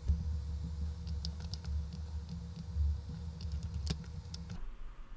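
Scattered clicks of a computer mouse and keyboard, over a low hum that cuts off about four and a half seconds in.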